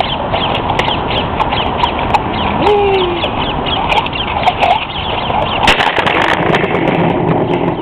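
Birds calling in quick, short, falling chirps over a steady rush of outdoor noise on a handheld phone microphone. Handling knocks and rustles come through, thickest about six seconds in.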